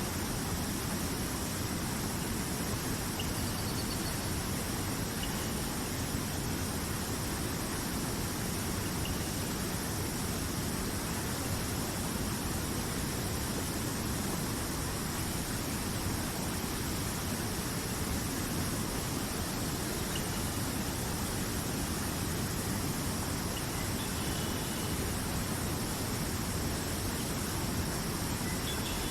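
Rushing river water: a steady, unbroken roar of flowing water, with a few faint, short high chirps here and there.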